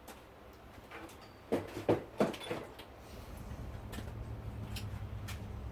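A few sharp knocks and clicks of a camera being handled and set on its mount, followed by a low steady hum that comes up about halfway through.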